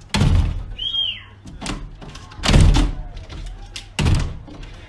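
Glass sliding door thudding and rattling in its frame as a large dog outside jumps up and shoves at it with its paws: four heavy thumps, the loudest about halfway through, with a short high squeak near the first second.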